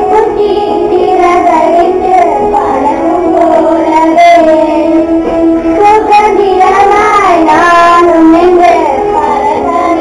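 Loud music: a song sung by a girl's voice over steady instrumental backing.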